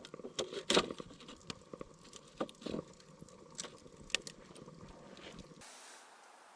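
Irregular light knocks and clicks, a few of them sharper, that cut off suddenly about five and a half seconds in.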